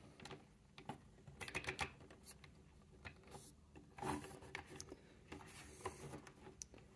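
Faint scattered clicks of a plastic Sludge action figure's joints being worked by hand as its legs are posed.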